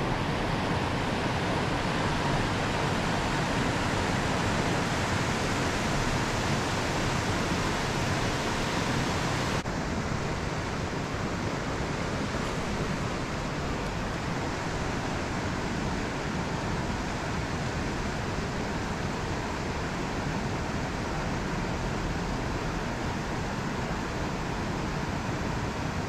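Creek water rushing over riffles and small falls, a steady, even rush that turns slightly duller about ten seconds in.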